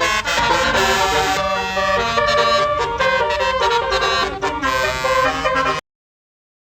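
Tour bus's basuri telolet horn, a set of musical air horns, playing a quick tune of several changing notes at once; it cuts off suddenly near the end.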